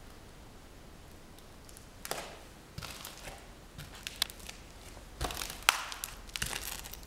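Irregular crunches, taps and clicks on a gritty, debris-covered floor, starting about two seconds in, with the sharpest crack a little past halfway.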